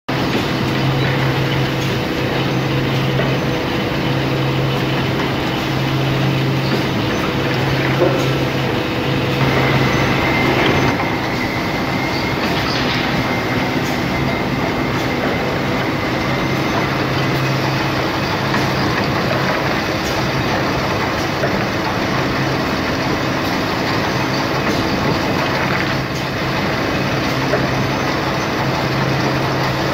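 Steady machinery noise from an automatic high-frequency panel press line for glued wood panels, with a low hum that comes and goes. A thin high whine sets in about a third of the way through and holds.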